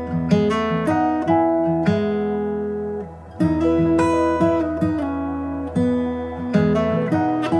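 Background music: acoustic guitar playing plucked notes that ring out and fade, with a brief break a little past three seconds in.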